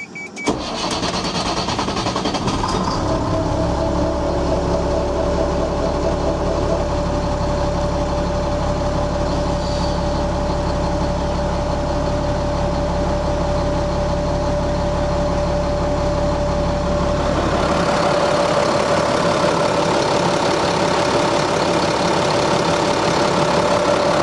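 Caterpillar 3126 six-cylinder diesel starting easily, catching about half a second in as a warning chime stops. It then settles into a steady idle with a steady whine over the low engine note. About 17 seconds in the sound turns brighter and less deep.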